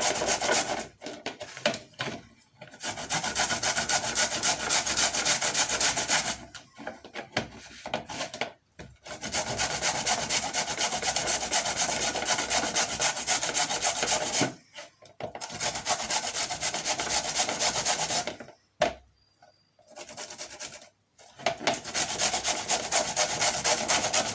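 Raw white turnip being grated on the fine side of a hand grater: fast, steady rasping strokes in several long spells broken by short pauses.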